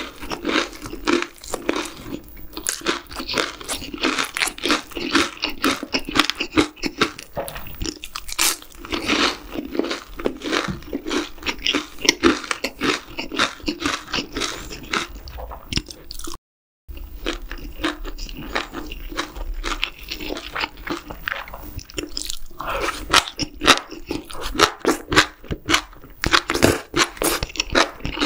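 Close-miked eating sounds: crisp crunching bites of deep-fried battered shrimp and wet chewing of spicy stir-fried webfoot octopus and rice, dense and continuous. The sound cuts briefly to silence a little past halfway.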